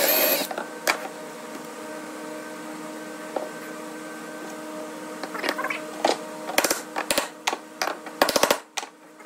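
Power drill motor humming steadily as it bores through a glued half lap joint for a reinforcing dowel, after a brief loud burst at the start. A run of sharp knocks and taps in the last few seconds.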